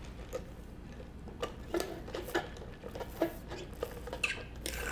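Eating sounds close to the microphone: scattered soft, irregular clicks and wet smacks of chewing and handling food.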